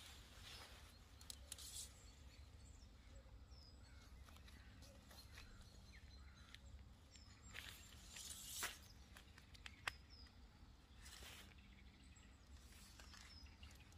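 Near-silent outdoor background with a few faint rustles of nylon tent fabric and aluminium tent poles being handled as a hooped bivvy tent is pitched. About two-thirds of the way through there is a louder swish, then a single sharp click.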